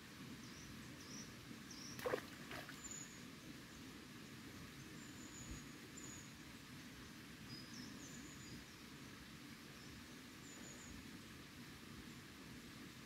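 Faint, scattered short chirps of small birds over a quiet steady outdoor hush. About two seconds in, a brief sharp knock sounds twice in quick succession.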